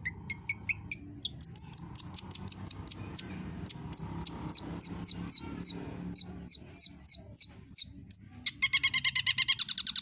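Long-tailed shrike (cendet) singing hard: a run of sharp, falling whistled notes, about three or four a second. At about eight and a half seconds it switches to a fast, buzzy repeated chatter of around ten notes a second.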